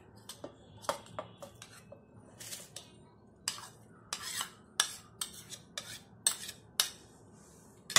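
Fried onion slices being tipped and scraped off a plastic utensil into a stainless-steel mixer-grinder jar: a run of irregular sharp clicks and short scrapes as the plastic knocks and drags against the steel rim.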